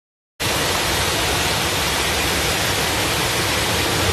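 Torrent of muddy floodwater pouring over a wall, a steady rushing noise that starts abruptly about half a second in.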